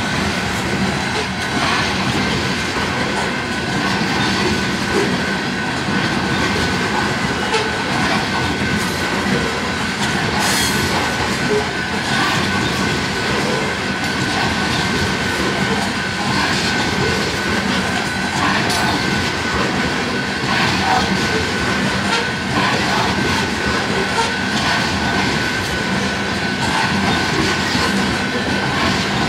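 Freight train of aluminum coal gondolas rolling past close by: a steady loud rumble of steel wheels on rail with clicking over the joints, and a thin steady high wheel squeal above it.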